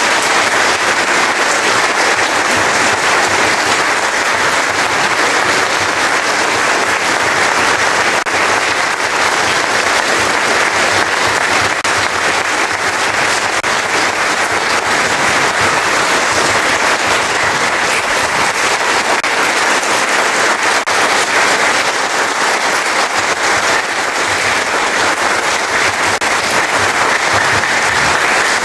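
Congregation applauding: many hands clapping in a steady, unbroken applause.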